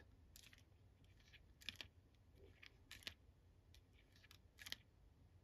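Near silence with a few faint, short plastic clicks as a Star Wars Galaxy of Adventures Darth Vader action figure is handled and its spring-loaded waist is twisted.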